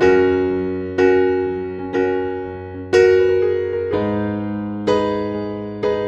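Background piano music: gentle chords struck about once a second, each ringing out and fading before the next.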